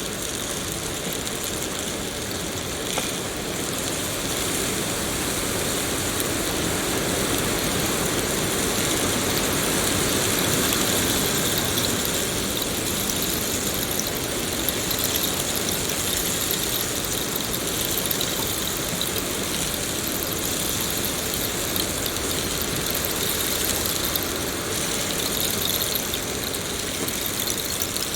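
Steady rain falling in a forest: an even hiss of drops on foliage that holds level throughout.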